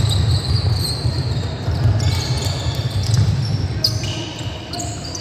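Basketball play on a wooden sports-hall court: a basketball bouncing, with repeated low thuds and short high-pitched sneaker squeaks echoing around the hall.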